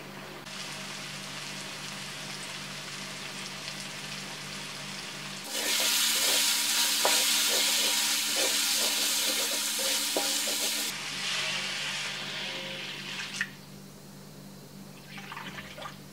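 Prawns and spice paste frying in a wok, sizzling, with a metal spatula stirring and scraping against the pan in repeated strokes; the sizzle is much louder in the middle and then dies down. A steady low hum sits underneath.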